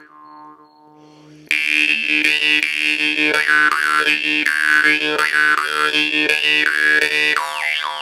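Ovcharenko Yggdrasil drymba (metal jaw harp) being played: a buzzing drone struck about three times a second, its overtones sweeping up and down as the mouth changes shape. A quiet fading tail gives way to a loud start about a second and a half in, and the sound dies away near the end.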